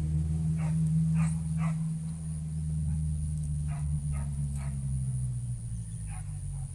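An animal's short calls, about seven at uneven intervals, over a steady low motor drone that drops in pitch and fades about five seconds in.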